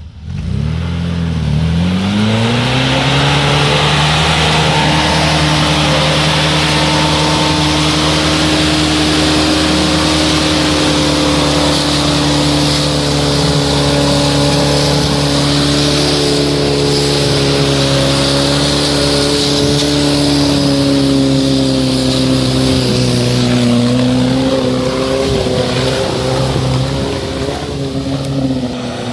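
Off-road vehicle's engine revving up sharply, then held at high revs in a steady, loud drone that sags slightly near the end, as when it is driven hard under load.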